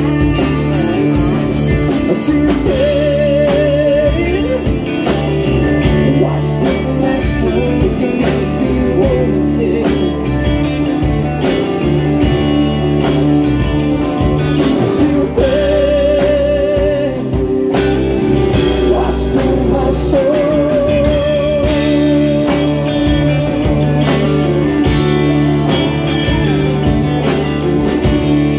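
A live rock band playing: electric and acoustic guitars, bass and drums, with a man singing over them.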